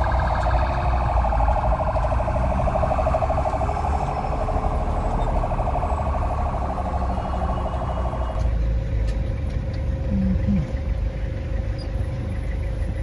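Engine and road rumble heard from inside a moving vehicle's cabin, with a rapidly pulsing electronic alarm-like buzz over it that cuts off suddenly about eight and a half seconds in.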